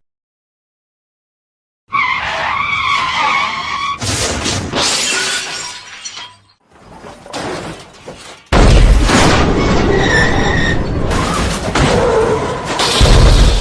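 Staged car-crash sound effects. After a short silence, tyres skid with a wavering squeal into a crash of breaking glass that dies away. About eight and a half seconds in, a second, louder crash of impact and shattering glass starts and its debris keeps going.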